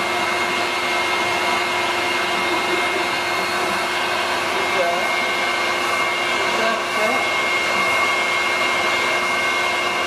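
Vacuum cleaner running steadily: a continuous rush of air with a constant motor whine.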